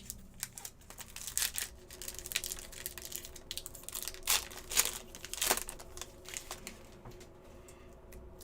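Crinkling and tearing of a trading-card pack's foil wrapper as it is opened and the cards are handled, in a run of irregular sharp crackles.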